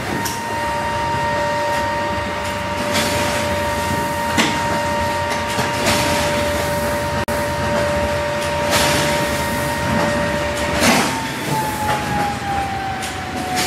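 A steady machine whine made of two held tones. The higher tone slides down in pitch about eleven seconds in, like a motor slowing down, and the lower tone stops at the same point. Several sharp knocks break in, the loudest just as the pitch starts to fall.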